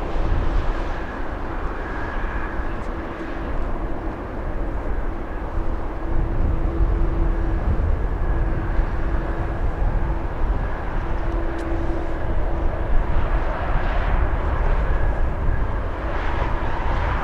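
Jet airliner's engines running at takeoff power, a steady rumbling roar with a faint hum that comes and goes.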